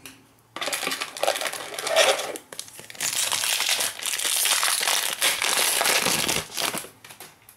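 Plastic wrapper of a 2017-18 Panini Prizm Fast Break trading-card pack crinkling and tearing as it is pulled open by hand. A first stretch of rustling, a short lull, then a longer, louder crinkling.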